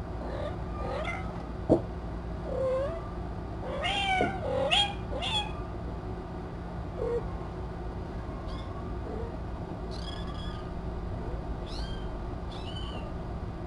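Kittens mewing in a dozen or so short, high calls, coming thickest about four to five seconds in. A single sharp click sounds just before two seconds, over a steady low hum.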